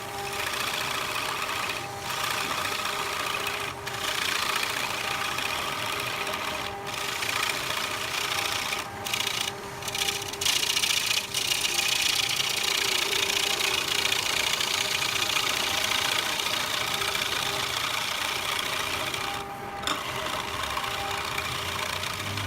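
Wood lathe running, with a steady motor hum under the hiss of a tool cutting the spinning wood. The cutting sound drops out briefly several times.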